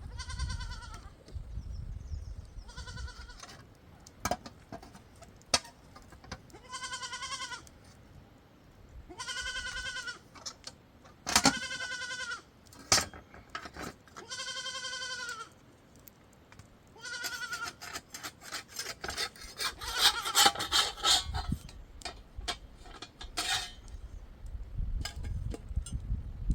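Sheep bleating, about seven calls with a wavering pitch, each up to about a second long. Clicks and knocks come between them and grow denser in the second half.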